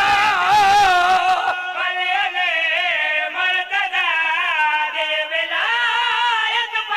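A solo voice chanting a devotional qaseeda in long, wavering melodic phrases, over a steady lower note that is held beneath it.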